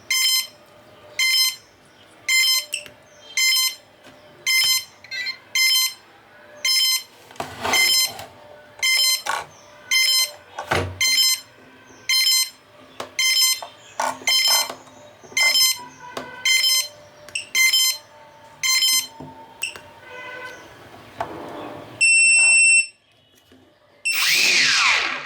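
Electronic beeper on the drone sounding short high beeps over and over, about one to two a second, then one longer steady beep near the end.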